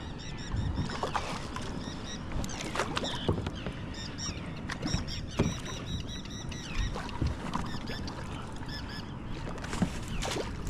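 Water sloshing and splashing around a fishing kayak, with many short knocks and clicks from handling gear on the hull.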